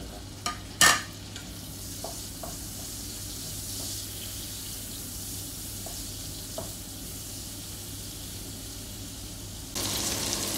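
Tomatoes, onion and garlic sizzling in hot oil in a frying pan while a wooden spatula stirs them, with a few light knocks of the spatula on the pan. A sharp knock about a second in is the loudest sound, and the sizzle gets louder near the end.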